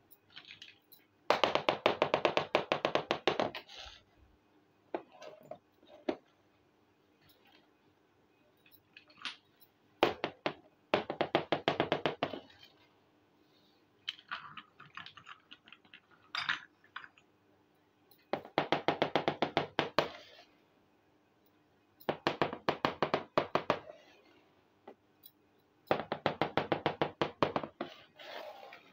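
Rapid tapping on small clay pots and toy dishes, in five runs of about two seconds each, with single knocks of pieces being set down on a hard table between them.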